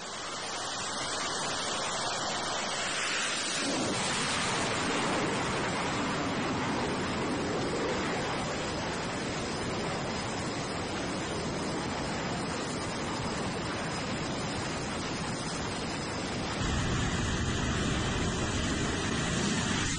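F/A-18 Super Hornet jet engines running on an aircraft carrier flight deck: a steady rushing noise that grows fuller a few seconds in and deeper near the end.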